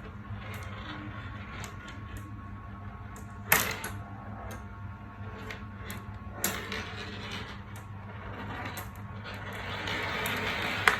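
Marbles rolling and clicking along a marble run track, with two sharp, loud clacks about three and a half and six and a half seconds in. The rolling rattle grows denser and louder near the end.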